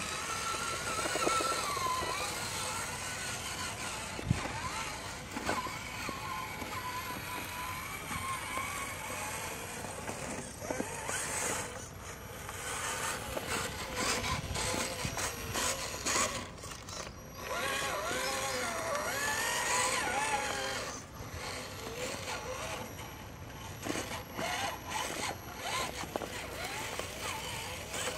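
Radio-controlled Axial SCX10 rock crawler's electric motor and gears whining, the pitch rising and falling with the throttle, with scattered knocks as it climbs over rock.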